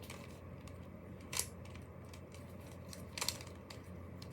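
Plastic Rubik's cube being turned by hand: a few scattered clicks and clacks of the layers, the loudest about a second and a half in and another just after three seconds.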